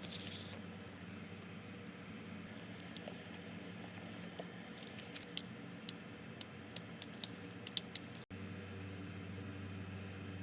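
Stiff photocards and card packaging being handled: a brief rustle, then a run of light, sharp clicks and taps as the hard cards knock together, over a steady low hum.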